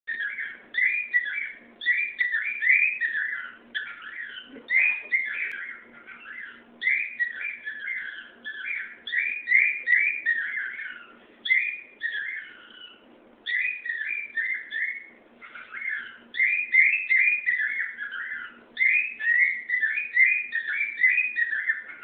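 Pet cockatiel singing: runs of short, quick whistled notes and warbled phrases, broken by brief pauses every few seconds.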